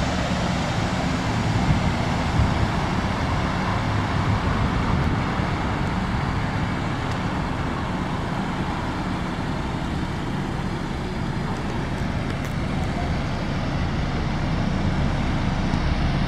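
Steady road traffic noise: an even low rumble and hiss that keeps up throughout.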